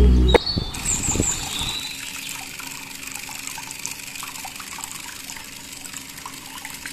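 A music sting ends about half a second in and fades out, leaving trickling water: a steady hiss with small ticks.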